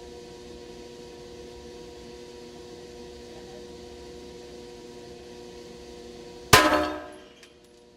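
A single sharp metallic bang about six and a half seconds in, ringing briefly as it dies away, followed by a few faint clicks, over a steady hum with held tones.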